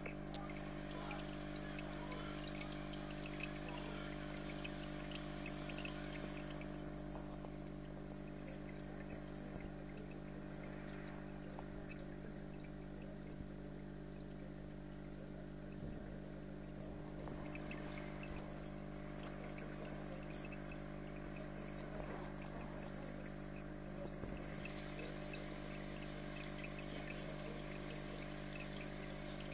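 Aquarium filter running: a steady motor hum with water trickling and bubbling over it. The trickle fades about six seconds in and comes back near the end.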